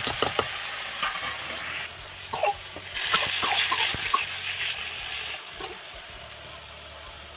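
Radish greens and potatoes sizzling in a wok, stirred with a metal ladle that clicks and scrapes against the pan. About three seconds in, a louder hissing sizzle rises as buttermilk is poured into a small iron karahi of spices tempered in hot oil. The sizzle then dies down.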